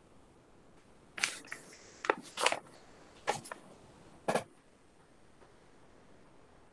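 Writing strokes on a tablet touchscreen: a cluster of sharp taps and short scrapes, about six in three seconds, then quiet room tone.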